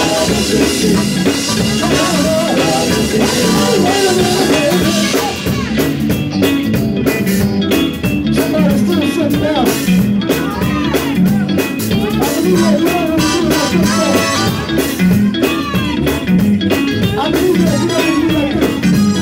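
Live gospel quartet music: electric guitar and drum kit keeping a steady beat, with male voices singing through the hall's microphones.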